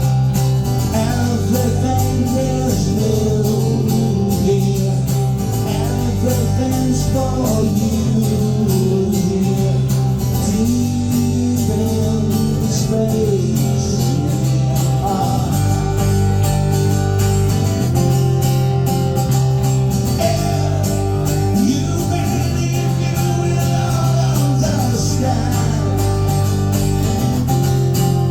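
Live rock band playing: guitars over a steady, repeating bass line, with a melody line above.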